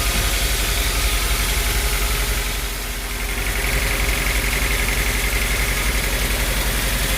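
Sawmill machinery running with a steady, rhythmic engine-like pulse. It dips briefly about three seconds in, and a higher steady whine comes in after that.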